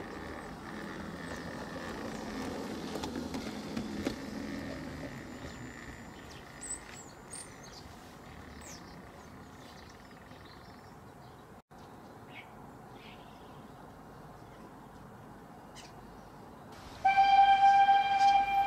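Full-size steam locomotive running, its rumble fading over the first several seconds, then a loud steam whistle sounding one steady note near the end.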